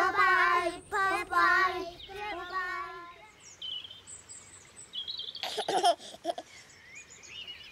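Small children singing together for about three seconds, then birds chirping and a baby giggling briefly about five and a half seconds in.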